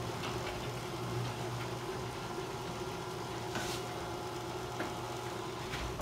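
LiftMaster ½-horsepower screw-drive garage door opener running steadily, its motor humming as it drives the door closed.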